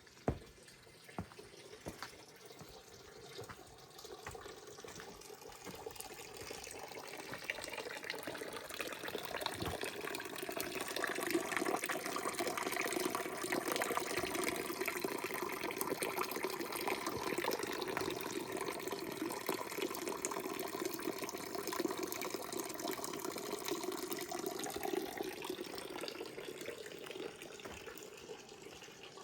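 Running water pouring and splashing, building up over several seconds, holding steady, then fading away. A few sharp ticks come right at the start.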